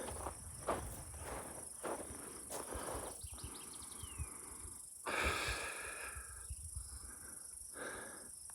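Steady high-pitched insect chirring over a hiker's footsteps on a dirt and gravel trail, with heavy breathing from the climb in the heat.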